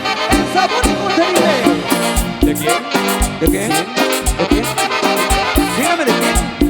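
Latin dance music with a steady bass beat and horn-like lines, played loud.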